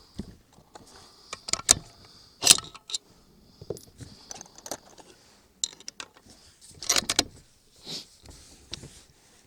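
Metallic clicks and rattles from handling a bolt-action rifle and its gear, in quick clusters about a second and a half in and again about seven seconds in.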